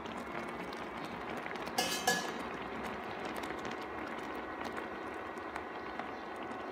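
Instant oats and milk simmering in a pan: a steady, quiet bubbling with many small pops. There is a brief clink about two seconds in.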